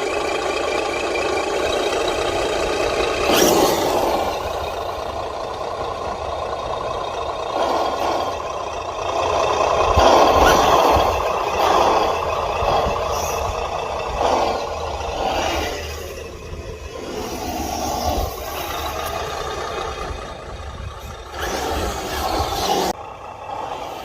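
Sound effects module on a Cen Racing F450 RC truck playing a simulated diesel truck engine through its small speaker, the level rising and falling as the truck is driven. Short hisses come about three seconds in and again near the end.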